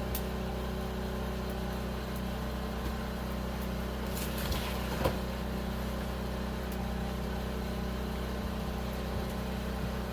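Steady low motor hum, running evenly without change in pitch, with a few faint knocks about four to five seconds in.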